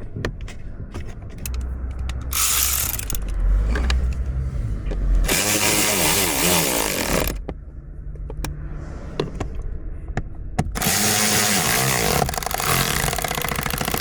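A cordless power tool driving in the blower motor's mounting bolts, running in bursts of a few seconds, twice, with its motor pitch rising and falling.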